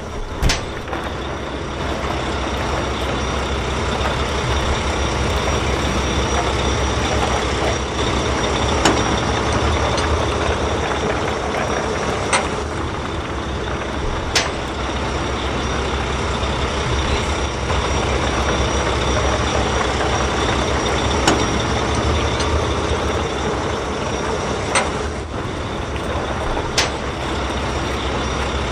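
Truck engine running steadily, with a few short sharp clicks at irregular moments.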